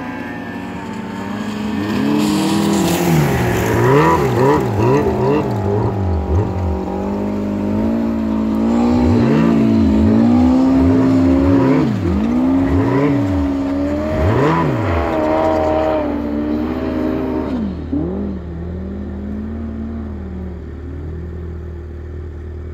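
Turbocharged Yamaha Apex snowmobile engine revving hard on a steep snow climb, the revs rising and falling over and over about twice a second, held high and steady in between, then dropping away over the last few seconds.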